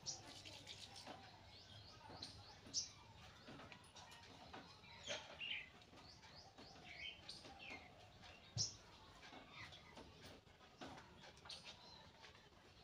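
Near silence with faint, irregular bird chirps in the background: short, high, falling calls every second or so.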